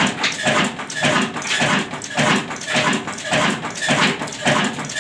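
Insaf Daska slow-speed diesel tube-well engine running steadily, its beats coming in an even rhythm of about three a second.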